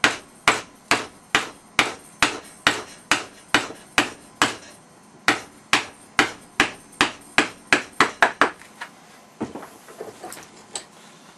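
A wooden block striking the end of a leather fid's new wooden handle, driving it down onto the steel spike held in a vice: steady blows about two a second, then a few lighter taps near the end. The spike goes into a hole slightly smaller than itself, so it is knocked home for a tight fit.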